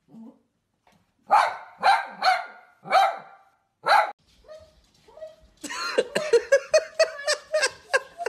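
Small curly-coated dog barking five times, loud and sharp, each bark about half a second apart. From about five and a half seconds in comes a quicker, denser run of barks and yelps.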